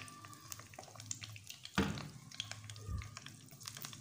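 Chicken pieces deep-frying in hot oil in a wok, the oil crackling and spitting with scattered pops over a steady low hum. A single thump about two seconds in is the loudest sound, with a smaller knock a second later.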